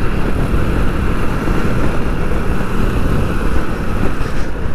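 Steady riding noise of a motorcycle cruising on a highway: engine running under a constant rush of wind and road noise.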